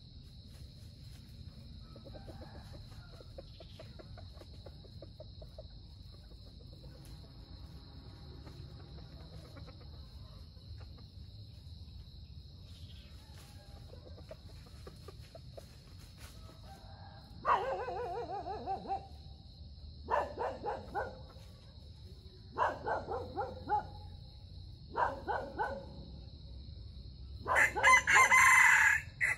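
Red junglefowl calling: a few faint clucks early, then from about two-thirds of the way in a run of five loud calls a couple of seconds apart, the last and loudest a crow. A steady high insect buzz sounds underneath.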